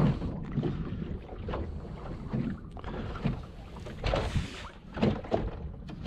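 Small boat rocking on choppy water: waves lapping and slapping against the hull with irregular soft knocks, and wind rumbling on the microphone.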